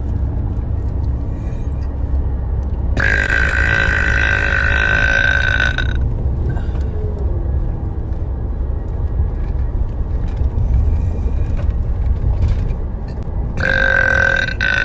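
A young woman's long, loud burps. One lasts about three seconds and starts about three seconds in; another starts near the end and drops in pitch as it trails off.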